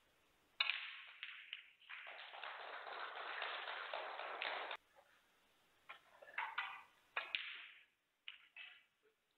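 Snooker cue striking the cue ball with a sharp click of ball on ball about half a second in, followed by the clicks of balls rolling and knocking. The audience then applauds for about three seconds as the black is potted, the applause cutting off abruptly. A few more ball clicks follow near the end.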